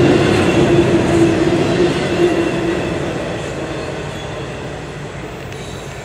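Double-stack container cars of a freight train rolling by on jointed track: a steady noise of wheels on rails. A steady ringing tone stops about two and a half seconds in, and the sound fades as the end of the train moves away.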